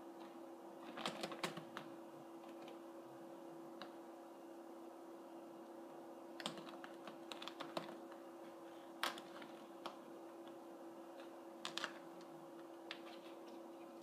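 Faint, scattered clusters of light clicks and scratches: a kitten's claws and paws catching and tapping on the fabric and wooden frame of a chair as it climbs and walks along the chair back.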